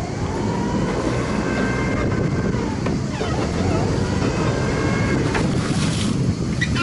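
Sailing yacht's inboard engine running under power, its steady rumble rising just after the start as it is throttled up for manoeuvring.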